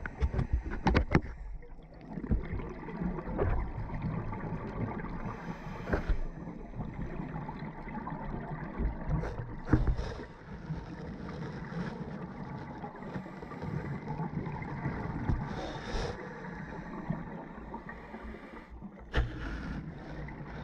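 Muffled underwater noise heard through a GoPro's housing: a steady wash of water sound with louder hissing surges every four to six seconds.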